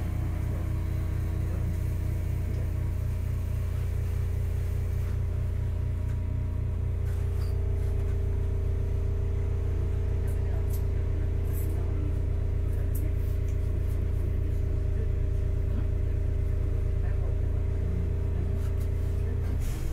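Hakodate City Tram 3000-series car 3002 heard from inside, standing still. Its onboard electrical equipment gives a steady low hum with several fixed tones and a fast, even low throb.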